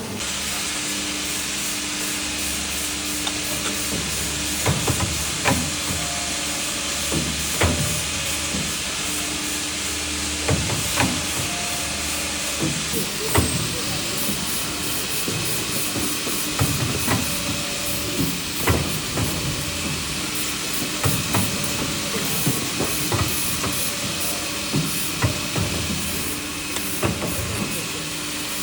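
CNC mandrel pipe bending machine running, with a steady hissing hum. Repeated sharp clanks and knocks come from it as it works the pipe, and these are the loudest sounds.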